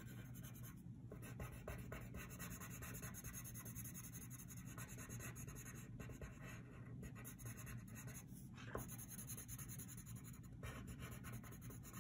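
Colored pencil scratching on paper in quick back-and-forth shading strokes, faint, with one slightly sharper tick about two-thirds of the way through.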